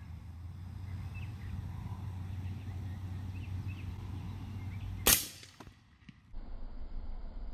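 A single shot from an AAC MPW rifle in 300 Blackout firing 220-grain subsonic ammunition: one sharp crack about five seconds in, over a steady low hum.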